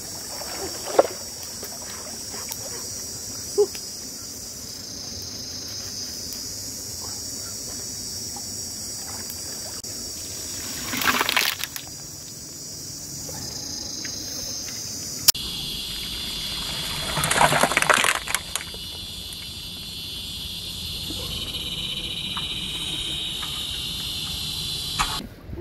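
Water poured from a container over river shellfish on a banana leaf, splashing and trickling in two short bursts, about eleven and seventeen seconds in, over a steady high-pitched drone.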